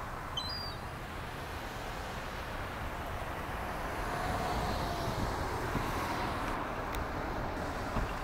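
Steady rushing background noise with no voices, with a few short high chirps about half a second in.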